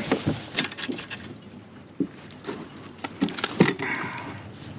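Irregular light knocks and clicks, about eight spread over a few seconds, from handling a just-landed largemouth bass in the boat.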